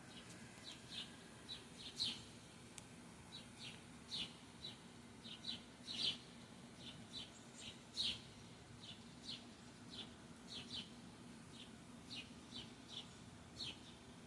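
Small birds chirping: repeated short, high, downward-sweeping chirps, several a second, with louder ones every couple of seconds.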